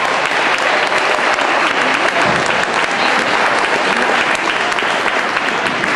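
Audience applauding steadily in a hall, with some voices mixed in.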